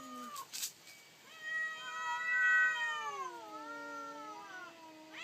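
A domestic cat meowing: a short meow that trails off just after the start, then one long drawn-out yowl of about four seconds that wavers and sinks in pitch toward its end, with another meow starting right at the close.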